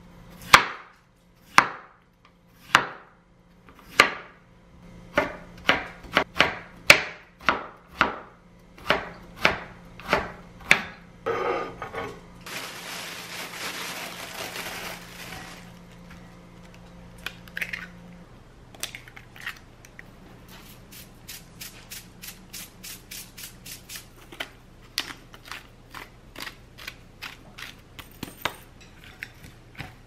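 Chef's knife chopping a carrot into thin strips on a wooden cutting board: sharp, evenly spaced strikes that come faster as it goes. The strips then slide and scrape off the board into a glass bowl. Later, chopsticks beat shredded cabbage and egg in the glass bowl with fast light clicking.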